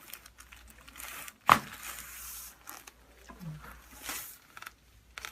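Rustling as a patient shifts on a chiropractic treatment table, with one sharp snap about a second and a half in.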